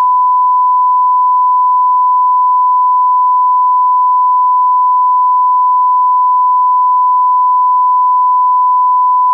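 A loud, unbroken electronic beep held at a single pitch, a pure sine-wave tone with no change in level.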